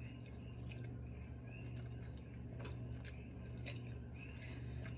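A person quietly chewing a bite of steamed dumpling with the mouth closed, with a few faint small clicks, over a steady low hum.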